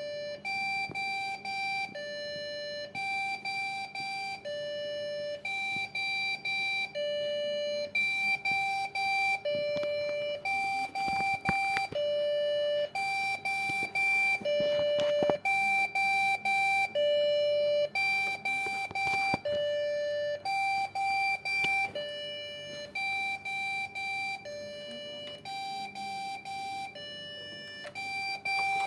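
Electronic beeping from a desktop PC that fails to start: a longer low tone alternates with a run of quick higher beeps, repeating over and over. This is the error beep code of a PC that powers on but gives no display. A few faint clicks sound in the middle.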